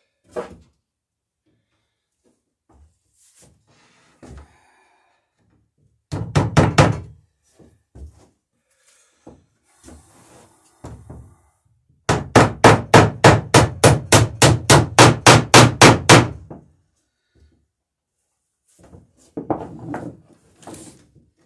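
Ball peen hammer striking a rivet through the wooden plank laps of a dory hull, riveting the sheer strakes: a quick group of about six blows, then a fast even run of about twenty blows, some four a second, with a few lighter knocks near the end.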